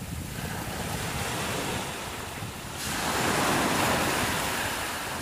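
Small waves breaking and washing up a sandy beach, the surf swelling louder about three seconds in. Wind rumbles on the microphone underneath.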